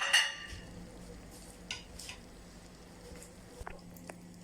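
Kitchen utensils and dishes handled: a short clatter of a utensil against a dish at the start, then a few light taps and clicks.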